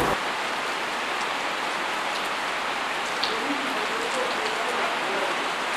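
Steady rain falling, an even hiss with scattered faint drops.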